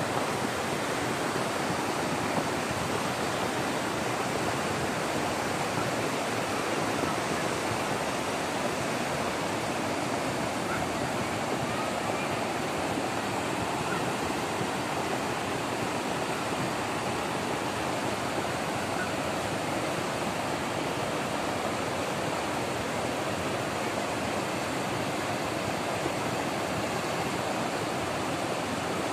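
Muddy flash-flood water rushing down a riverbed: a steady, unbroken rush of turbulent water.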